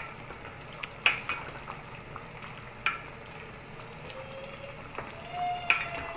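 Pork pieces simmering in broth in a stainless steel pot, with a steady bubbling hiss, while a ladle stirs them and knocks sharply against the pot a few times.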